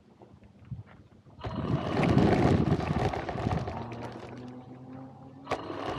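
RC car driving on gravel. Near quiet at first, then about a second and a half in a rough burst of gravel crunching and rattling under the tyres. After that the car's motor gives a faint, steady low whine that rises slightly in pitch, and a sharp click comes near the end.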